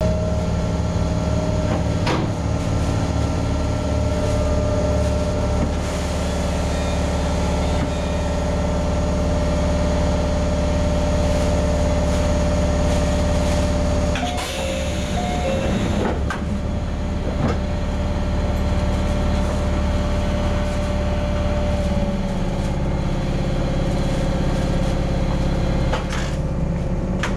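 Mizuma Railway 1000 series (ex-Tokyu 7000 series) electric train standing at a platform, its onboard equipment giving a steady hum and rumble, with a brief cluster of clunks and short tones about halfway through, typical of the doors closing. Near the end a rising motor whine begins as the train starts to pull away.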